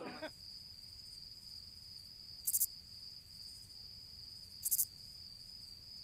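Cricket chirping sound effect, used as an awkward-silence gag: a faint steady high trill with two brief louder chirps, about two and a half and nearly five seconds in.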